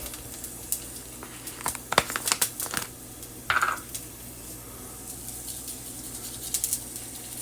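Kitchen handling noises: light clicks and taps of seasoning containers and a plate, clustered about two to three seconds in, with one short higher blip a little later, over a steady low hum.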